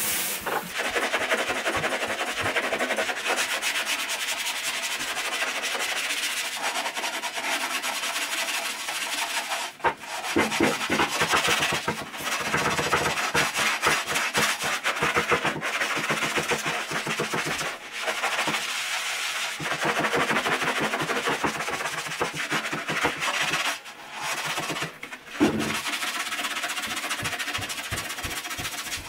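Gloved hands scrubbing the inside of a porcelain toilet bowl in rapid back-and-forth strokes, working off limescale and stains, with a few short breaks.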